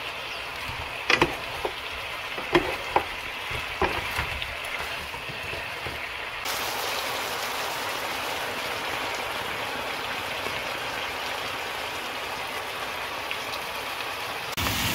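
Soy-based braising sauce bubbling and sizzling around chicken drumsticks in a frying pan as it reduces, louder from about six seconds in. A wooden spoon knocks against the pan about five times in the first four seconds while stirring.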